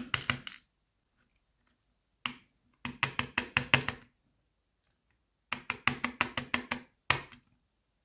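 Brass lock plug and its small key pins tapping and clicking against a plastic pin tray as the pins are shaken out, in three quick runs of light taps, about seven a second.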